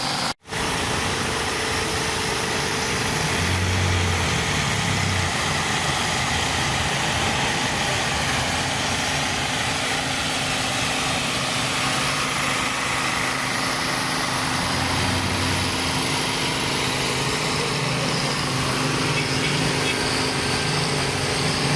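A steady engine run, a vehicle or machine motor, with a constant hiss over it. The sound cuts out for an instant just after the start.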